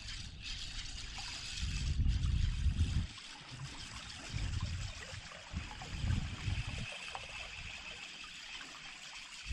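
River water trickling and running steadily, with low rumbles coming and going.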